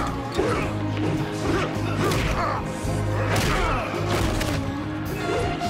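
TV action score with a steady low bass line, under hand-to-hand fight sound effects: about half a dozen punch and body-impact hits with swishes, landing every second or so.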